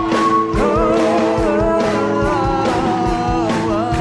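A live band with a drum kit plays a song while several voices sing long held notes together, sliding between pitches, over a steady drum beat.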